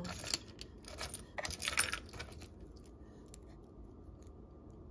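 Metal costume jewelry and buttons clinking and rattling against each other as hands rummage through a pile, in a few quick clusters of clinks during the first two seconds or so.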